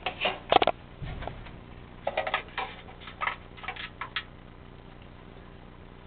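Hand handling sounds close to the microphone: a few short scrapes and taps shortly after the start, then a quick cluster of them between about two and four seconds in, then a faint steady hum.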